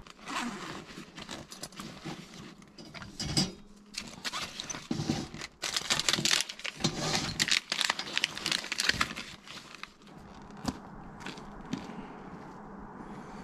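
Irregular crinkling and rustling of something crinkly being handled, with many small sharp clicks. It is busy for about ten seconds, then settles to a few scattered clicks.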